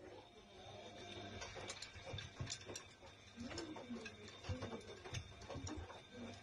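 Front-loading washing machine running with its drum turning, a steady low hum, while a cat's claws click and tap on the glass door. From about three and a half seconds in, the cat meows in short wavering calls.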